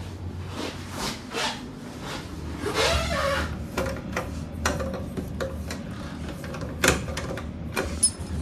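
Wooden door being handled: a run of light clicks and knocks, with a short rising squeak about three seconds in and sharper knocks near seven and eight seconds.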